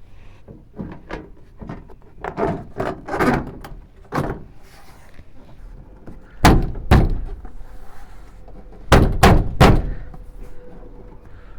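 Hand banging on a 1979 Dodge D-150's passenger-side inner door panel to snap its clips into place: a few lighter knocks, then two loud thumps, and about two seconds later three more in quick succession. The panel won't sit flush and keeps popping out, which the owner puts down to clips that are out of whack.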